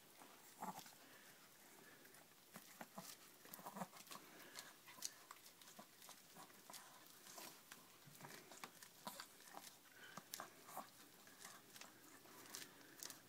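Small dog gnawing kernels off a corn cob: faint, irregular crunching clicks and smacks.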